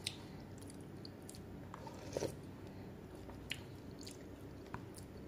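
Faint chewing and mouth sounds from a last mouthful of instant noodle soup, with a few scattered soft clicks, over a low steady room hum.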